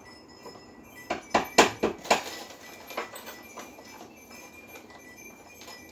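Small metal hardware being handled: a quick run of sharp clinks and knocks about a second in, then a few scattered taps.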